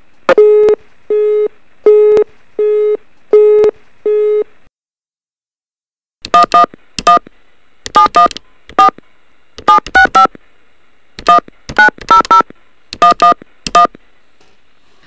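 Telephone line busy tone after the other end hangs up: six evenly spaced beeps of one low pitch, a little under a second apart. After a short silence, a number is dialled on a touch-tone keypad: about eighteen short key beeps in irregular groups.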